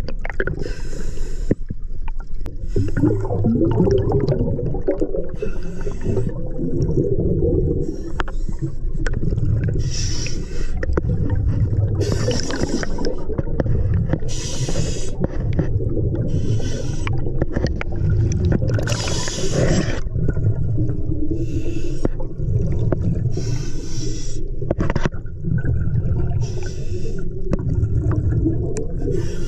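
Scuba diver breathing through a regulator underwater: a hiss of air on each breath and the bubbling rush of exhaled air, repeating every couple of seconds.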